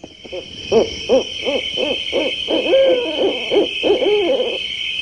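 Owl hooting in a quick series of short hoots that rise and fall in pitch, with one longer hoot in the middle, over a steady high chorus of crickets. The hooting stops shortly before the end.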